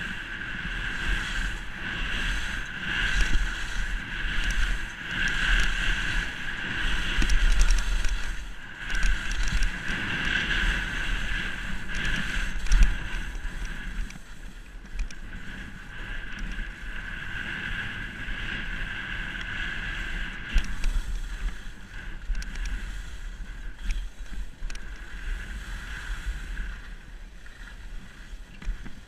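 Skis hissing and scraping over snow on a downhill run, swelling and fading with each turn, over a low rumble of wind on the camera's microphone; it dies down near the end.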